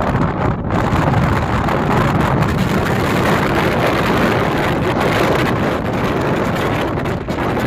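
Steady wind buffeting the microphone over the running of a moving vehicle.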